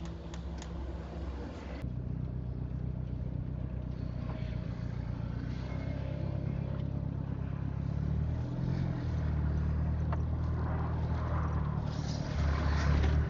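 A car's engine running at low road speed, heard from inside the cabin: a steady low hum that grows a little louder near the end.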